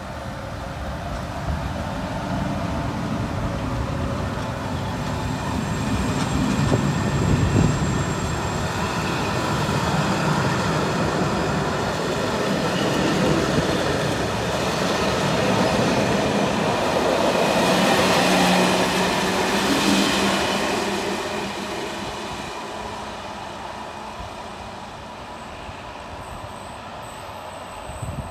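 Two coupled ČD class 560 electric multiple units pulling away and rolling past: rail and wheel noise with a steady electric hum, building up, loudest about two-thirds of the way through, then fading as the end of the train draws away.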